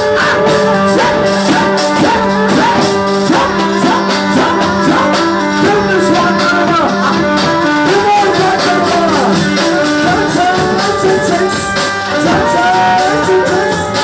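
Live Turkish wedding dance music: a davul bass drum beating under a melody that winds and slides in ornamented runs, with a held low note beneath that drops out about two-thirds of the way through.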